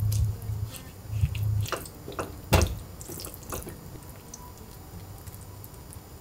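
Spatula mixing and stirring a wet, chunky seasoning mixture in a stainless steel frying pan: wet squelching with clicks and scrapes against the pan, the loudest knock about two and a half seconds in. It starts with a low rumble and goes quieter for the last couple of seconds.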